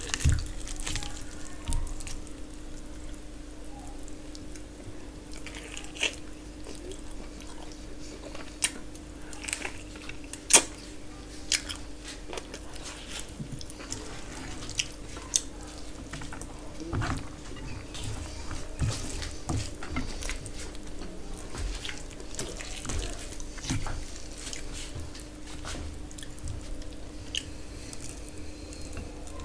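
Eating sounds from hand-eating tandoori chicken with rice and gravy: fingers tearing the chicken and squishing rice on a steel plate, chewing, and scattered sharp clicks, the loudest about ten seconds in. A steady hum runs underneath.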